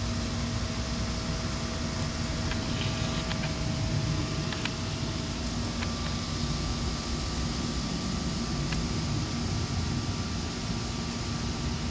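Steady mechanical hum with a constant hiss, like a machine running, and a few faint clicks in the first part.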